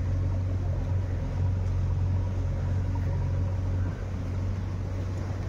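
Steady low engine drone, even in pitch.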